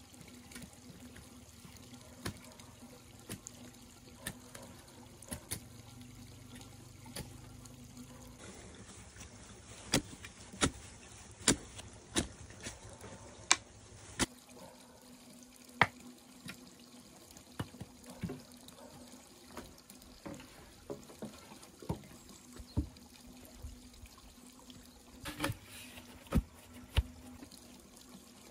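Bamboo being worked by hand: scattered sharp knocks and taps at irregular intervals over a faint steady hiss.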